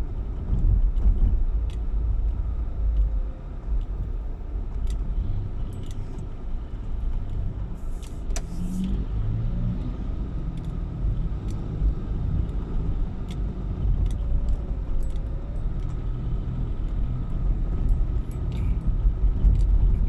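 Car driving along, a steady low road and engine rumble with scattered small clicks and rattles.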